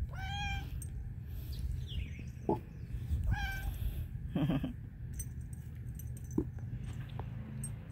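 Siamese-type cat meowing several times in short, high-pitched calls: one near the start and another about three seconds in.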